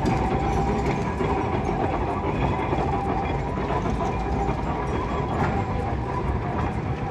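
Hiroshima Electric Railway (Hiroden) car 101, a vintage streetcar, running along street track, with the noise of its wheels on the rails and a steady whine.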